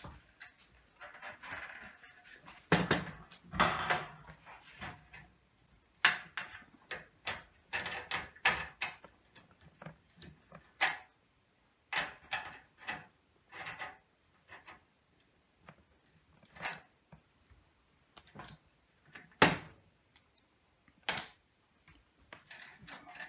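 Irregular clicks, taps and light knocks of parts being handled and fitted into a fluorescent light fixture, with a few sharper clicks standing out.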